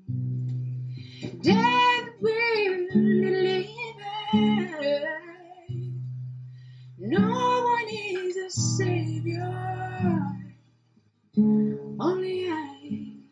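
A woman singing to her own strummed acoustic guitar. The chords start right away and her voice comes in about a second and a half later; the music breaks off briefly about ten and a half seconds in, then picks up again.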